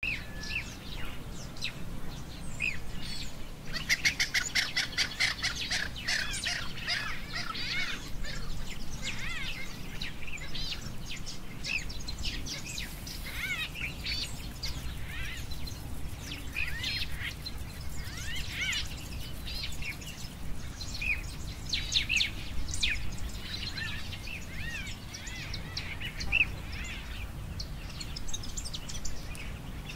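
Wild birds chirping and calling throughout, with a dense burst of rapid chattering about four seconds in, over a low steady background rumble.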